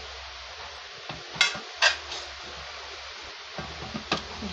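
Steel spoon scraping fried coriander across a nonstick pan and clinking against the rim of a steel mixer jar, with two sharp clinks about a second and a half and two seconds in and another near the end.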